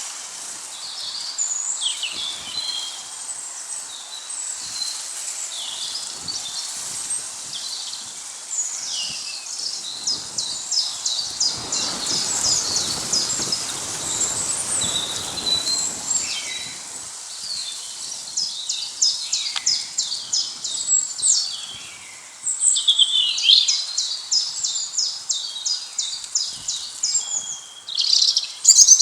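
Small songbirds chirping and twittering high-pitched, with several fast trills of repeated notes. There are a few seconds of soft rustling noise near the middle.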